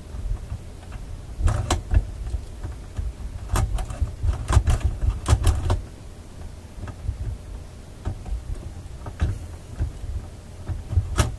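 The record changer mechanism of a 1960s Symphonic record player clicking and clacking as its metal parts are worked back and forth by hand, in groups of sharp clicks over a low handling rumble. The mechanism is freshly oiled but still a little bindy.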